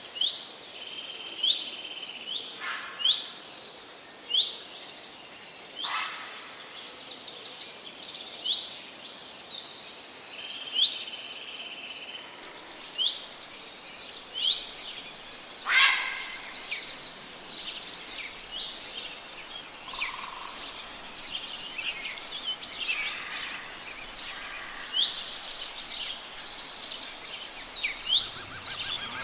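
Several songbirds singing and calling together: many short high chirps, quick downward-sweeping whistles and rapid trills, overlapping throughout over a faint steady hiss.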